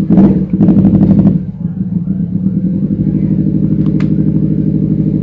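A motorcycle engine running at a steady idle with a fast, even pulse, louder for the first second or so. A sharp click comes about four seconds in.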